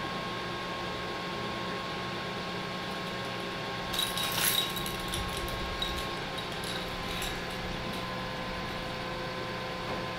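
Steady mechanical hum with a few fixed tones. About four seconds in there is a brief light clatter and jingle of small objects being handled.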